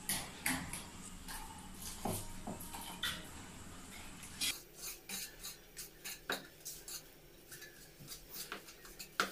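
A wire whisk stirring a thin wheat-flour batter in a plastic bowl, its wires clicking and scraping against the bowl in quick irregular strokes.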